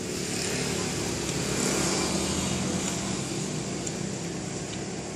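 Road traffic passing: a vehicle's engine and tyre noise swells about a second or two in and slowly fades over a steady traffic hum. A few faint clinks of a spoon and fork on a plate.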